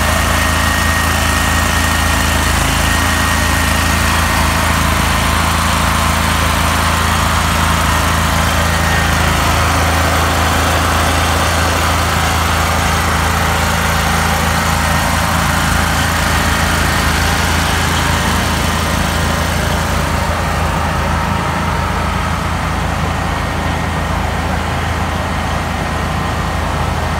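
ANATA AG-6500EA 5 kW gasoline generator running at a steady, constant speed with an even engine hum. The sound turns duller in the last several seconds.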